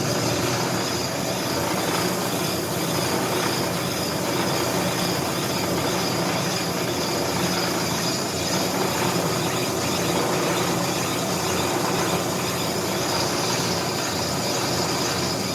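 Brake lathe running with its cutting bit taking a light cut, about two thousandths of an inch, off the face of a C6 automatic transmission's clutch backing plate. The sound is a steady grinding hiss with a thin high tone running through it.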